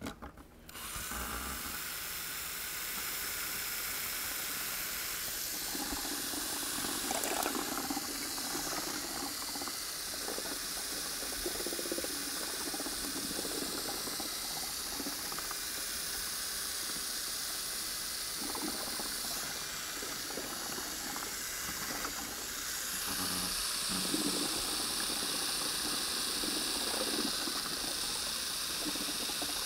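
Small cordless drill running steadily, its mixing paddle churning the liquid urethane and pigment in a plastic bucket. The sound grows a little louder about two-thirds of the way through.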